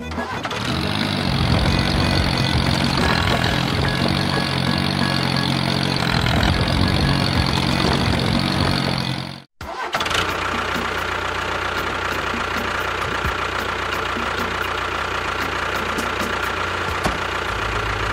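Tractor engine running, in two stretches split by a sudden cut about nine and a half seconds in. The second stretch is steadier, with a thin high whine over it.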